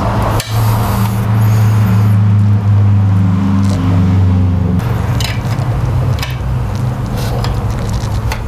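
A loud, steady low hum from a running motor, which weakens about five seconds in. Over it come a few sharp metallic clicks and clinks of a hand wrench working on the engine's belt adjuster.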